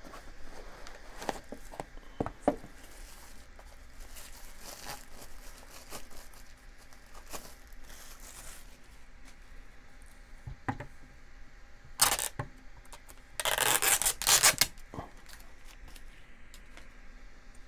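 Unboxing handling: cardboard box flaps and a plastic clock rubbing and scraping, with scattered light clicks. Two louder rustling tears of the white protective wrap being pulled off, a short one about twelve seconds in and a longer one just after.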